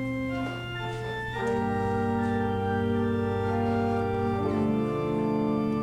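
Church organ playing a hymn introduction: a few single held notes at first, filling out into full sustained chords about a second and a half in.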